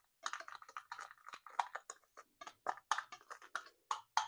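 A utensil stirring dry seasonings (onion powder, garlic powder, salt and black pepper) in a small bowl: quick, irregular scraping and clicking strokes, about four a second.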